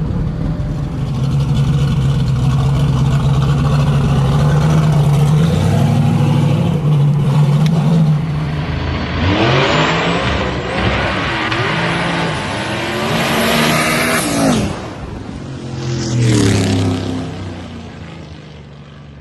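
Fox-body Mustang drag car's engine rumbling steadily, then revving hard and accelerating about nine seconds in, with a second shorter burst of throttle near the end before the sound fades away.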